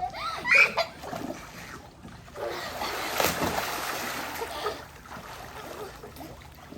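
Water splashing in a swimming pool for a couple of seconds around the middle. A brief voice is heard near the start.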